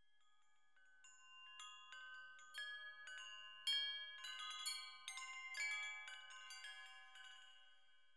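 Metal chimes ringing: a loose, irregular scatter of struck bell-like tones that starts about a second in, grows fuller, then rings away near the end.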